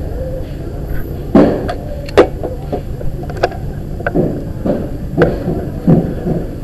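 Handling noise from the night vision scope and its camera as it is moved and aimed: about a dozen irregular knocks and clicks, the loudest about one and two seconds in, over a steady low rumble.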